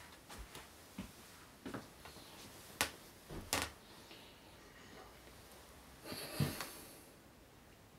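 Quiet small room with a few faint clicks and rustles, a sharper click just before three seconds in, and a short breathy sound about six seconds in.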